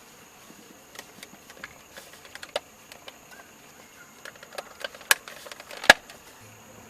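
Scattered light clicks and taps of small parts being handled around the turn signal switch and steering column. There are two sharper clicks, about five and six seconds in.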